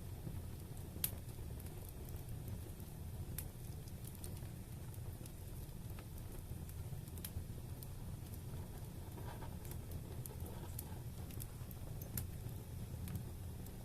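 Wood fire burning in a fireplace: a steady low rumble with scattered sharp crackles and pops, the loudest about a second in.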